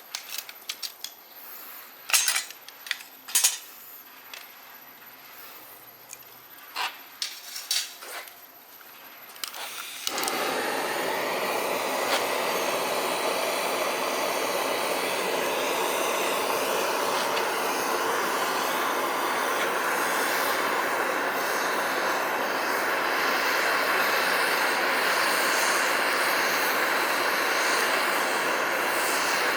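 Light metallic clicks and clinks of stainless steel stove parts being handled, then about ten seconds in a steady, loud hissing rush starts abruptly and keeps going.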